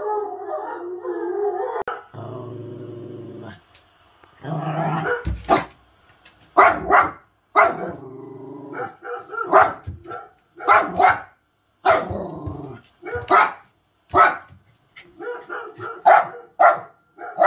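Dog barking in a long series of short, sharp barks, often two in quick succession, starting a few seconds in.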